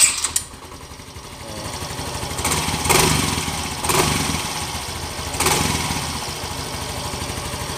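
Yamaha Mio i 125 scooter's single-cylinder four-stroke engine catching at once on its electric starter, then running with a few brief revs about three, four and five and a half seconds in. The push start works with the new starter motor, starter relay and battery.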